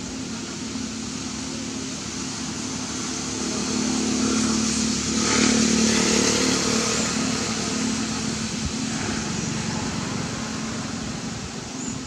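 A motor vehicle's engine going past, a steady hum that grows louder to a peak about halfway through and then slowly fades.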